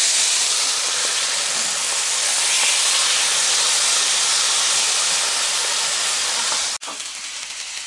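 Bone-in pork entrecote sizzling hard in hot oil with a garlic clove in a frying pan on high heat. About seven seconds in, the sizzle drops suddenly to a quieter level.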